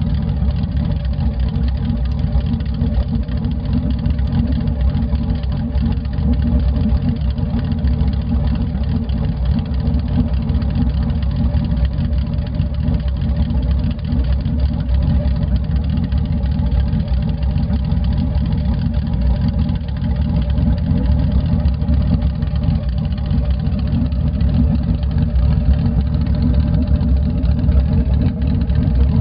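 Boss Hoss motorcycle's LS V8 engine idling steadily with a thumping beat, set by an aftermarket 'thumping' ECM calibration.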